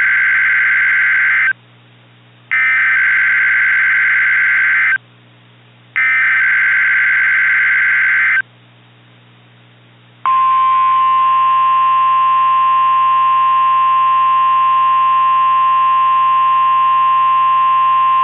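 Emergency Alert System SAME header data bursts: three harsh, screechy digital bursts of about two and a half seconds each, a second apart. About ten seconds in they are followed by a steady single-tone weather-radio attention signal that runs on, marking the start of a new alert.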